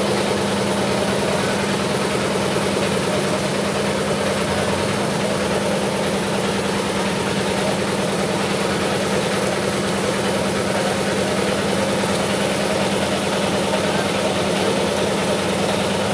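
An engine running steadily at an even pitch, a constant drone that does not change.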